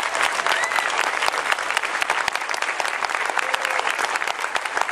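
Audience applauding, a dense steady clatter of many hands clapping, with a short call from the crowd about half a second in.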